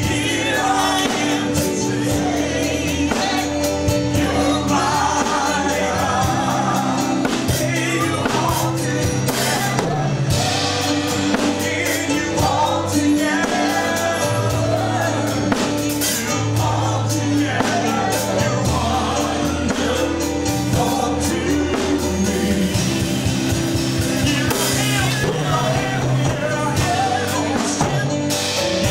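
Gospel worship song: voices singing over steady instrumental accompaniment.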